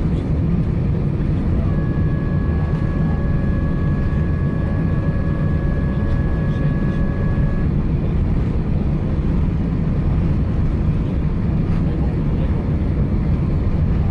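Steady roar of engine and airflow noise inside an Emirates Airbus A380-861 cabin. A faint, steady high whine joins it about two seconds in and stops about five seconds later.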